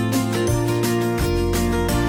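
Background music: a steady-paced instrumental track with plucked guitar.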